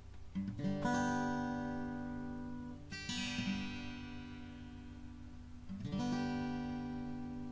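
Harley Benton HBD-120CE dreadnought cutaway steel-string acoustic-electric guitar: three chords strummed about three seconds apart, each left to ring and slowly fade.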